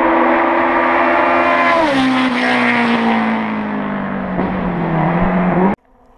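Rally car engine running hard at high revs, its note dropping sharply about two seconds in and then sliding steadily lower. The sound cuts off suddenly near the end.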